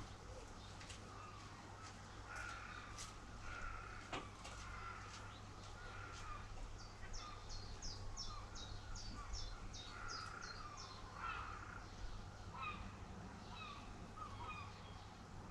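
Birds calling: repeated short calls throughout, with a quick run of high chirps, about three a second, in the middle. A steady low hum runs underneath.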